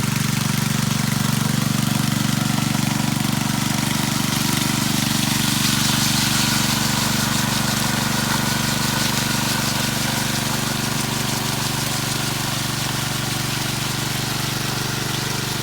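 Power trowel's petrol engine running steadily as its blades work over setting concrete. It gives a constant drone with a hiss from the spinning blades.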